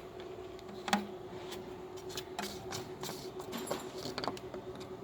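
Toyota 1AZ-FSE four-cylinder petrol engine idling with a steady hum, with scattered irregular clicks and taps over it, the loudest about a second in.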